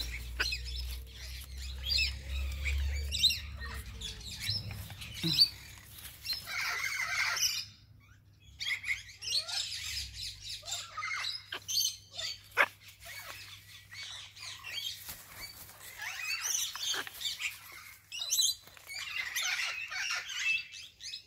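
A green-winged macaw and a blue-and-yellow macaw chattering with scratchy, raspy calls, mixed with scattered clicks from beaks and claws on the perch. Wings flap near the start.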